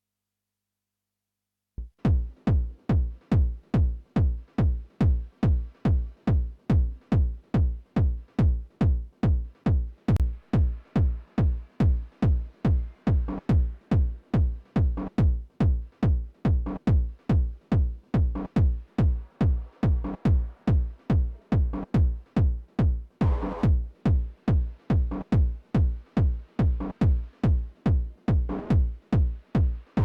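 Techno kick drum playing a steady four-on-the-floor beat, about two and a half hits a second, starting about two seconds in after silence, with a looped textured layer running between the kicks. A short bright hissing burst sits over the beat about 23 seconds in.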